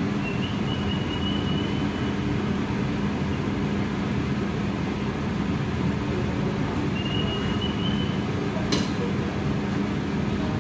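Steady machine hum and rushing air from a commercial kitchen's ventilation and refrigeration units. A faint high whistle comes and goes twice, and there is a single sharp click about three-quarters of the way through.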